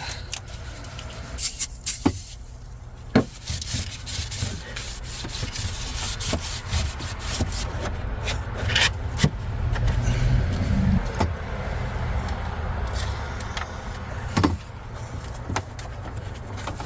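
Hand rubbing and scrubbing as dirt is cleaned off around a car's battery cable mount, with scattered sharp clicks and knocks, the loudest about three seconds in.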